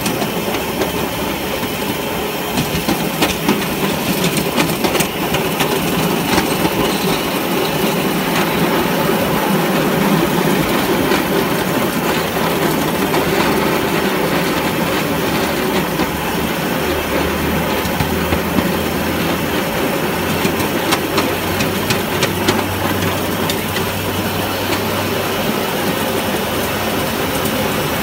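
7¼-inch gauge miniature railway locomotive running along the track, a steady running noise with scattered clicks of the wheels over rail joints. A low hum comes in about two-thirds of the way through.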